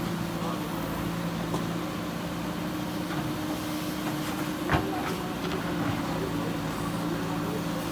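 JCB backhoe loader's diesel engine running at a steady pitch, with one sharp knock a little past the middle.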